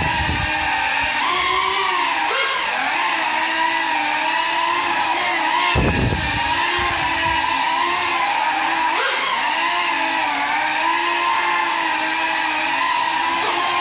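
Small ducted FPV quadcopter flying on broken propellers: a steady motor and propeller whine of several tones that rises and falls in pitch with the throttle. Deep gusty rumbles come as it passes close, at the start and about six seconds in.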